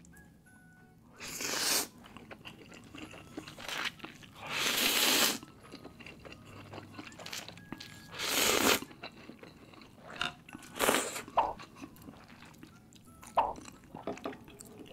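Eating instant laksa noodles: four loud slurps of noodles and broth, each about half a second to a second long, with quieter chewing between them.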